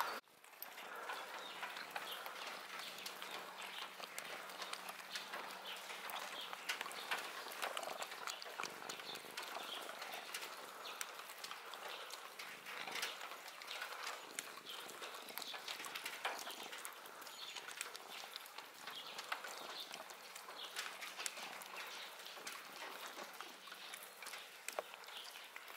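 Cat eating wet food from a plastic tub: a continuous run of small, irregular chewing clicks and smacks.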